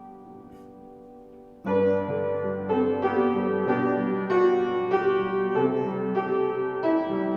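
Piano playing slow music: a held chord fades away, then a fuller chord is struck a little under two seconds in, and new notes follow about once a second.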